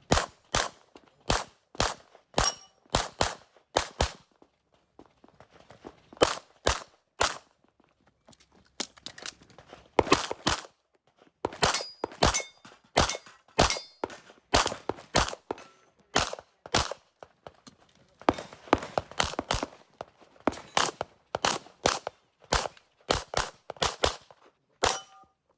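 Handgun shots fired rapidly, mostly in quick pairs, dozens of them in several strings separated by short pauses: a practical-shooting (IPSC) course of fire.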